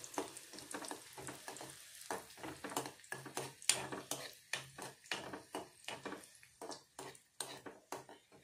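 Metal spoon scraping and tapping around a metal kadhai, several strokes a second, as raisins are stirred while frying in hot ghee with a light sizzle.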